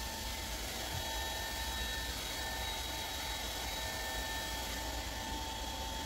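Hair dryer running steadily: an even airy hiss over a low hum, with a thin steady whine from its motor.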